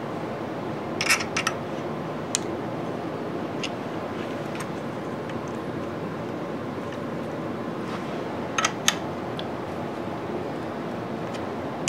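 A handful of light metallic clicks and taps from handling a DRO read head and its aluminium mounting bracket while fitting a hex key to a bracket screw. They come as a small cluster about a second in, a single click soon after, and a close pair near the end, over a steady background hum.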